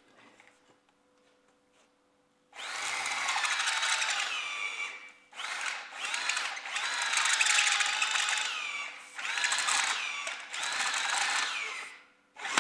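Handheld electric drill with a step drill bit boring through a metal plate held in a vise, starting about two and a half seconds in and run in four bursts with a high squeal from the bit on the metal. The pitch drops as the drill slows at the end of each burst.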